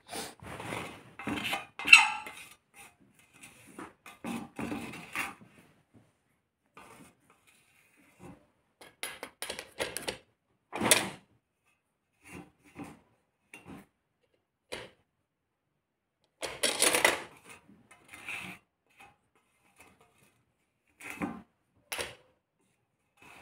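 Kitchen utensils and dishes being handled: irregular clinks, knocks and scrapes with quiet gaps between them, the loudest about 2, 11 and 17 seconds in.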